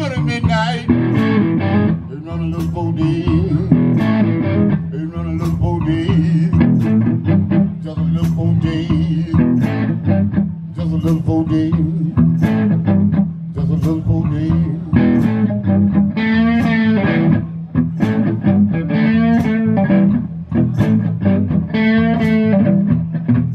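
Electric blues band playing an instrumental passage: a Stratocaster-style electric guitar takes the lead over an electric bass line and a steady kick-drum beat. In the second half the guitar holds several notes with a wide, shaking vibrato.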